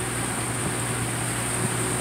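Motor yacht's engines running steadily while underway, a constant low hum under an even hiss of wind and water.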